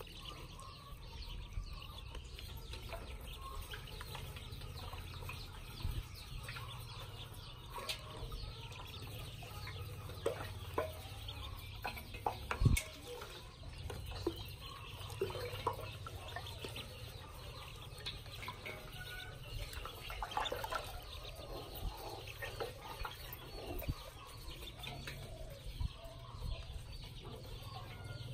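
Domestic ducklings peeping in a metal basin of water, with a few sharp knocks, the loudest about thirteen seconds in.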